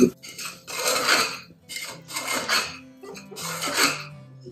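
Rice and lentils being stirred and scraped against the inside of an aluminium pressure cooker as they roast, a few rasping strokes about a second apart. Soft background music plays underneath.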